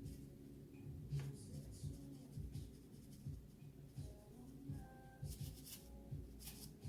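Seasoning rub being shaken from a shaker bottle onto raw pork chops: soft repeated taps with scratchy rattles of the rub, and a couple of brisker shakes near the end.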